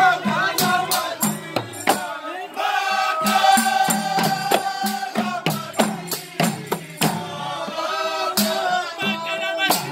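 A men's chorus chanting a Comorian moulidi, a devotional song in praise of the Prophet, in unison with long held notes. Frame drums with jingles beat a steady rhythm.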